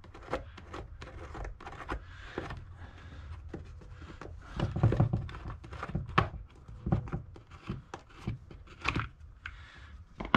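Plastic knocks and clicks of a chainsaw's cover being handled and taken off to get at the air filter, with a couple of louder thunks around the middle.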